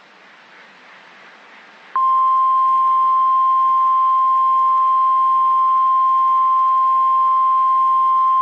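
Faint radio hiss, then about two seconds in the NOAA Weather Radio warning alarm tone starts abruptly. It is one loud, unwavering tone near 1050 Hz that signals an emergency alert message is about to be read.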